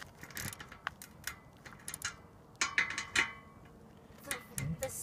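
A torque wrench ratcheting as a bolt on aluminium solar racking is tightened: irregular clicks, with a louder run of clicks and clatter about two and a half seconds in.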